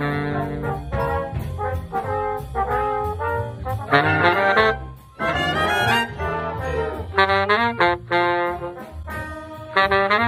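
A saxophone playing a melody, a string of held and short notes with quick runs up and down about halfway through.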